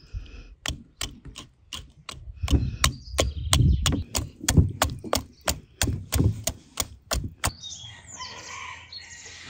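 Metal wire whisk beating a thick butter-and-milk mixture in a glass bowl, the wires clicking against the glass about three times a second with soft thuds of the batter. The whisking stops near the end, leaving birds chirping.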